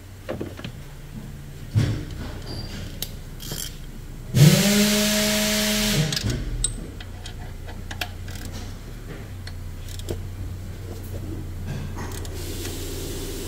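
Cordless power tool spinning up and running steadily for under two seconds, then stopping, as it drives in an alternator mounting bolt. Light clicks and knocks of tools being handled come before and after it.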